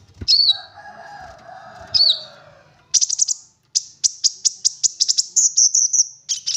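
Kolibri ninja ('konin') sunbird singing a full, varied song. Two sharp high chirps about two seconds apart, with a lower wavering sound between them, then from about three seconds a fast run of high, quick notes and a short buzzy rattle.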